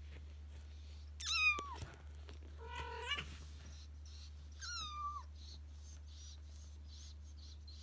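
Kitten meowing: three short meows, the first the loudest, the first and last high and falling in pitch.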